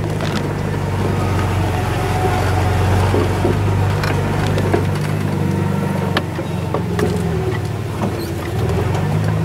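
1994 Ford F-150 pickup's engine running at low speed, heard from inside the cab while the truck creeps across the yard. The engine note swells a few seconds in and eases off again later, with scattered clicks and rattles over it.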